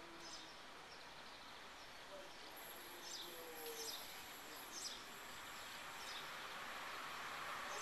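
Faint outdoor ambience: a few short bird chirps and a thin, steady high whine, with a low rushing that slowly grows louder toward the end as the E444 electric locomotive and its express train approach.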